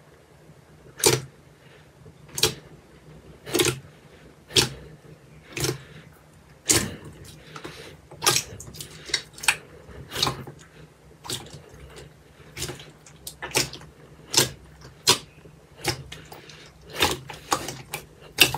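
Thick glossy slime pressed and squeezed by hand in a glass bowl, giving short sharp wet pops and clicks as air pockets in it are squeezed out. The pops come about one a second at first and closer together in the second half.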